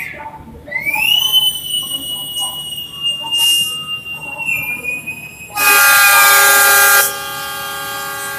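A high, shrill whistle rises and then holds for about four seconds. It is followed by the CC 206 diesel locomotive's horn: a loud chord of several notes for about a second and a half, which then carries on quieter. This is the departure signal and the train's answering horn as it sets off.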